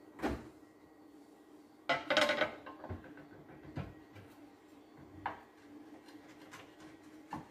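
Slate board set down on a glass hob cover with a clack, then a short scraping knock and a scatter of small taps as a kitchen knife and a hard turrón bar are handled on the slate. A faint steady hum runs underneath.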